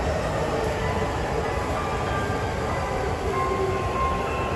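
Steady rumble and hum of JR East E231- and E233-series electric commuter trains standing at the platform, with faint steady whines from their electrical equipment that come in during the second half.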